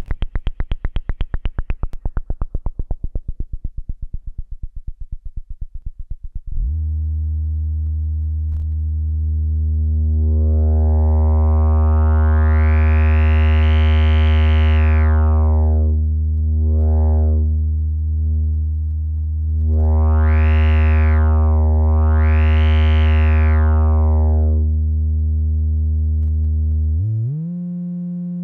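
Synthesizer oscillator signal through a breadboarded Moog-style transistor ladder low-pass filter, its cutoff swept by hand with a potentiometer. First a fast buzzy pulse train that grows duller as the filter closes. About seven seconds in comes a steady low tone that brightens in a slow wah-like sweep, closes, then opens and closes twice more, and its pitch jumps up near the end.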